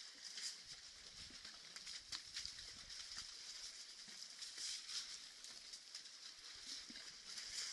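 Faint waterhole ambience through a trail camera's small microphone: a steady high hiss with scattered soft clicks and splashes from elephants and buffalo moving and wallowing in the mud.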